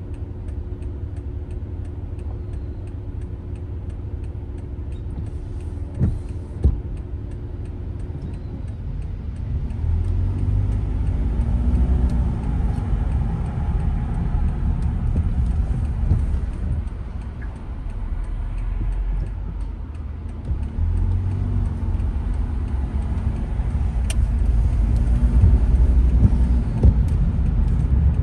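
Car driving in the rain, heard from inside the cabin: low rumble of the engine and tyres on the wet road, growing louder about nine seconds in as the car picks up speed. Two short knocks come about six seconds in.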